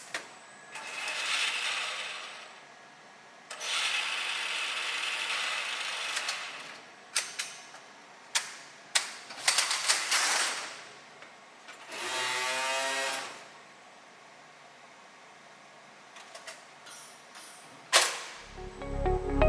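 Signode TP 12 strapping tensioner at work: two longer ratcheting stretches, then a run of sharp clicks and a short buzzing pull as the strap is tensioned, ending in a loud snap. Music comes in just before the end.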